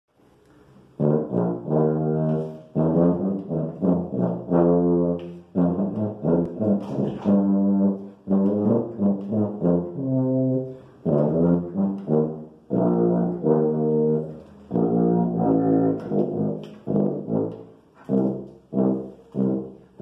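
B-flat tuba, a B-M copy of the Yamaha 104, played in a couple of scales: a run of separate full, low brass notes in short phrases with brief breaks between them, starting about a second in. The instrument is fairly well in tune.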